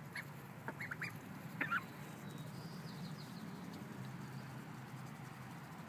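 Pekin ducklings peeping contentedly: a few short, high calls in the first two seconds, then fainter chirps, over a steady low hum.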